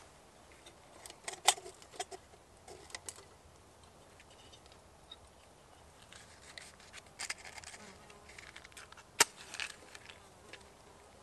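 Small metal clicks and rattles of a hurricane lantern and a matchbox being handled, then a match struck about nine seconds in: one sharp strike followed by a short hiss as it flares.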